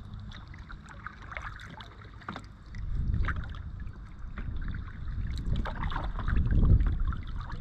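Paddle strokes dipping and splashing beside an Oru Beach LT folding kayak, with water lapping at the hull. Wind buffets the microphone as a low rumble that grows stronger from about three seconds in.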